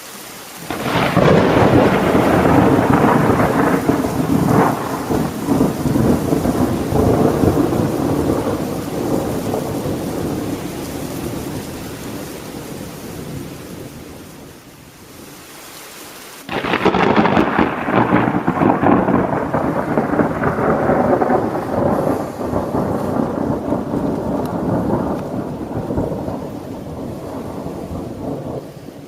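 Two peals of thunder, each a long rolling rumble. The first builds about a second in and fades slowly over some fifteen seconds. The second breaks suddenly about halfway through and rumbles away gradually.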